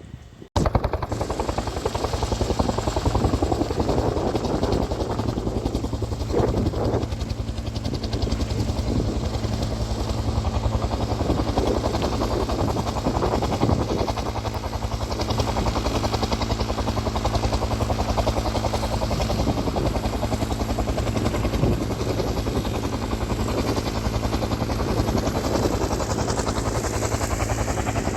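An engine running steadily at a constant speed, with a low, even drone; it cuts in abruptly about half a second in.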